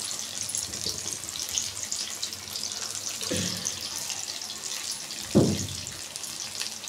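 Gram-flour pakoras deep-frying in hot oil in an iron kadhai: a steady dense sizzle with fine crackles. Two dull thumps come about three and five seconds in, the second louder.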